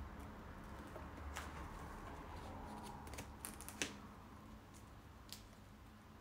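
Quiet rustling of stiff sego gele fabric being handled and pinned on the head, with a few short crisp crackles spread through.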